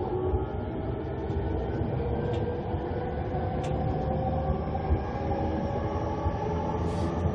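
Running sound of a JR E231-500 series commuter train heard from inside the motor car, driven by its Mitsubishi IGBT-VVVF inverter and traction motors. The motor whine slowly rises in pitch as the train gains speed, over a steady wheel-on-rail rumble.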